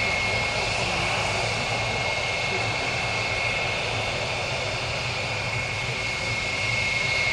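Two Grob G-115E Tutor T1 trainers' four-cylinder Lycoming piston engines and propellers droning at full power as the pair climb away after take-off. Over them runs a steady high whine from the engines of a large jet waiting on the runway.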